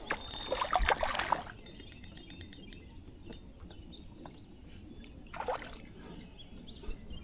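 Water splashing beside a kayak, then about a second of rapid, evenly spaced mechanical clicks, with a single click and a short water swish later on.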